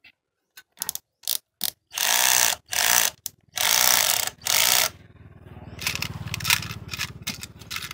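Several short runs of rapid metallic clicking and rattling, ratchet-like, after a few single clicks, from hand work on a scrap generator's bolts and parts.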